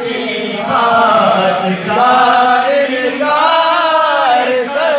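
A man singing a manqabat, a devotional praise song for Imam Ali, in long, held, wavering phrases with short pauses for breath between them.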